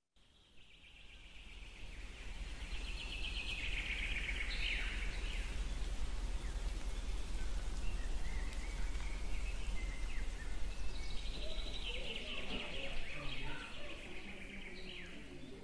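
Outdoor ambience fading in from silence: a steady low rumble with two spells of busy, high-pitched bird chatter.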